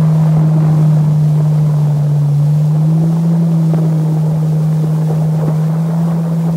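Jet ski engine running at a steady pitch, holding one low, even hum.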